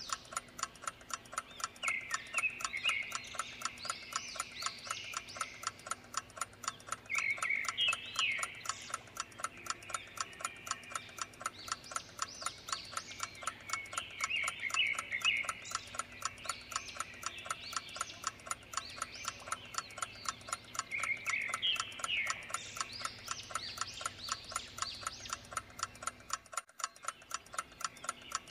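Clock ticking fast and evenly, with short bursts of chirping calls about every six or seven seconds. The sound briefly drops out near the end.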